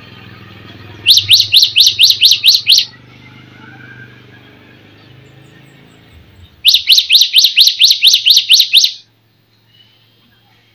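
Songbird singing two loud bouts, each a fast run of about ten sharp, identical repeated notes lasting around two seconds, with a few seconds' pause between them.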